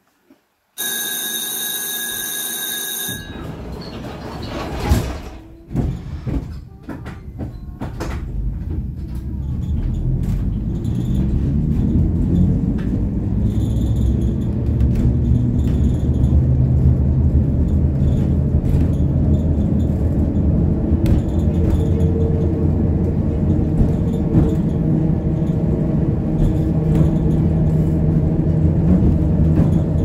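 Gotha T57 tram setting off and running: a steady electronic tone for about two seconds, a few knocks, then the rumble of its motors and wheels on the rails builds from about eight seconds in and stays steady.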